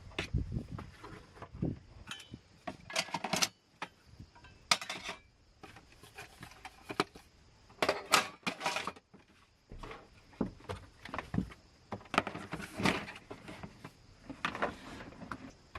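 Irregular clinks and rattles of small hard, metallic-sounding objects being handled, some with a brief ring.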